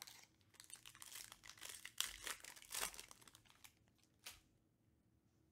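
Foil wrapper of a Panini Prizm UFC trading-card pack crinkling and tearing as the pack is ripped open. The rustling is loudest about two to three seconds in, with one short crinkle a little after four seconds.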